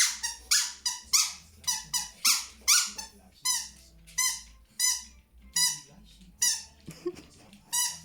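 Squeaky rubber egg toy squeaked over and over as a dog bites down on it: short high squeaks, about two a second at an uneven pace.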